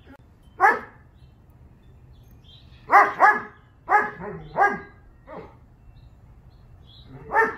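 German shepherd barking: about seven loud single barks at uneven intervals, two of them in a quick pair.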